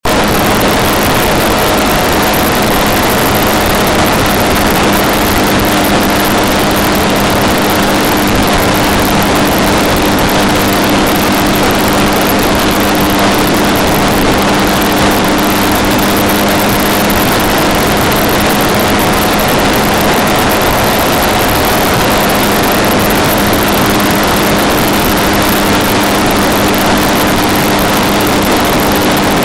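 Vehicle running at a steady speed: a constant engine drone at unchanging pitch under loud, even tyre and wind noise.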